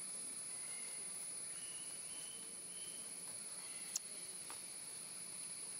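Outdoor insect drone, a steady high hum, with a few faint high chirps in the first half and one sharp click about four seconds in.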